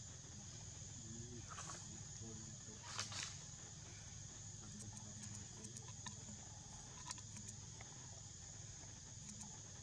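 Steady high-pitched insect drone of the forest, with a few short sharp clicks, the loudest about three seconds in.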